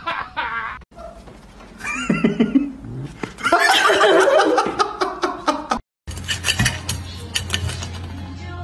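A pet's calls mixed with people laughing, with a sudden cut about six seconds in to a different recording carrying a steady low hum and clicks.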